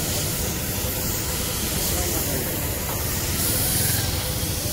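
Compressed air hissing steadily from a paint-shop air gun on a car body.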